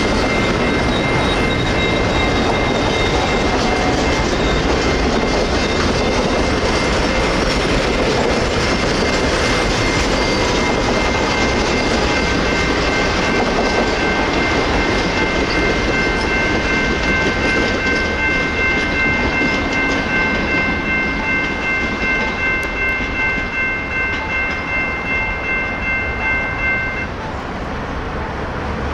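General Signals Type 2 electronic crossing bell ringing steadily over the noise of a passing train, its wheels clacking over the rail joints. The bell cuts off about two seconds before the end while the train noise goes on.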